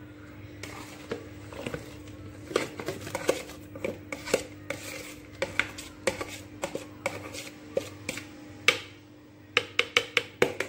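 Kitchen handling clatter as chopped onion and fresh herbs go into a blender jar of tomato purée: a string of knocks and clicks on the jar, with a quick run of clicks near the end. The blender is not running.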